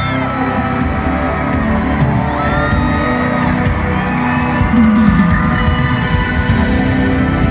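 Live pop concert music played loud through an arena sound system, with a sung melody over a heavy bass beat and occasional shouts from the crowd.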